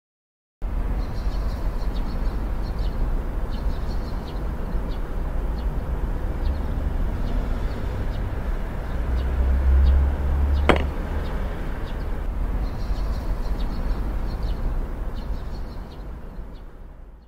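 Background ambience with no music: a steady low rumble and hiss, with faint high chirps now and then. There is a single sharp click about eleven seconds in, and the sound fades out at the very end.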